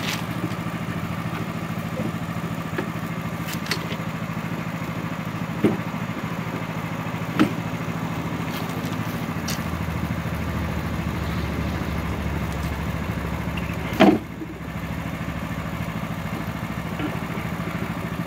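Small engine of a ride-on miniature train locomotive idling steadily. A few sharp knocks cut through it, the loudest about 14 seconds in, as a wooden board is levered against a derailed car to get it back onto the rails.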